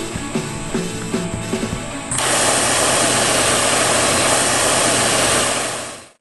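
Rock music with a drum beat for about two seconds, then a loud, steady hiss of water spraying from a pistol-grip garden hose nozzle, which fades out near the end.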